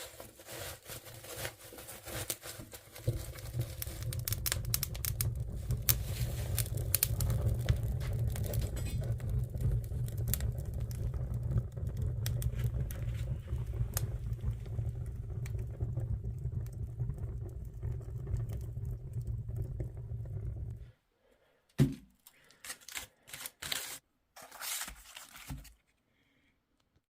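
Wood fire crackling in a fireplace, with a steady low rumble under dense crackles; it cuts off abruptly near the end and a few short knocks follow.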